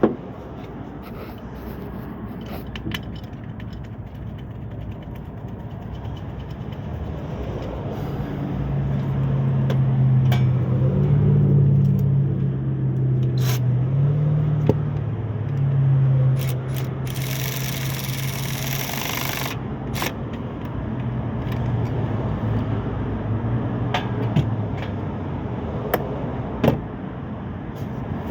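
Low drone of a motor vehicle's engine that swells for several seconds and then fades, with a burst of hiss about two seconds long in the middle. Scattered clicks and knocks of parts and tools being handled run throughout.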